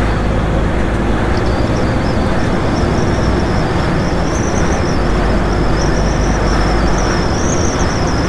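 Steady road noise of a MAN TGX truck cruising at speed: the diesel engine drone mixed with tyre and wind noise. A thin high whine sits on top from about a second in.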